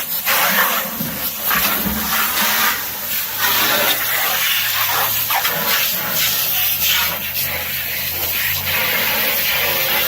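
Water running and splashing in a steady, hissing rush with an uneven spattering texture.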